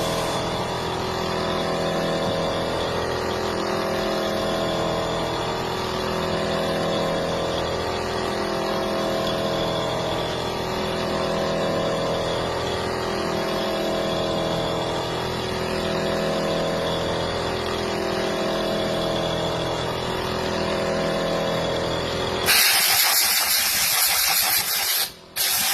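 CNC machining center running: a steady hum of several tones that shift in a repeating pattern every couple of seconds. Near the end a loud spraying hiss starts, stops briefly and starts again.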